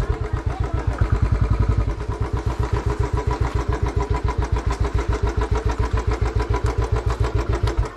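Motorcycle engine idling with an even putt-putt of about ten beats a second, stopping at the very end.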